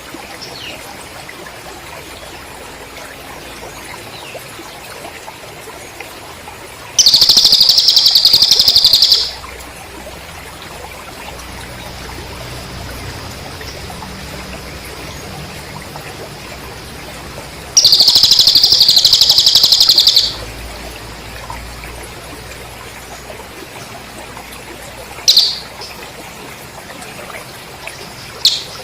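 Master track of cililin bird song mixed with cricket sound: two loud, fast-pulsing high trills of about two and a half seconds each, some ten seconds apart, with a few short high chirps near the end.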